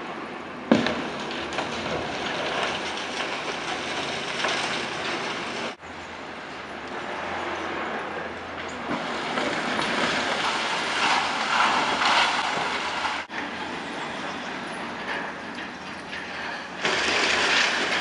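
A wrecking ball strikes a concrete building with a sharp crash about a second in, followed by long rattling and crashing of broken concrete falling away. A louder burst of falling rubble comes near the end.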